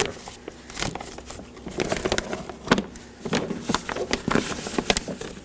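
Plastic door vapor barrier crinkling and rustling in irregular crackles and clicks as wiring harnesses are pushed through it.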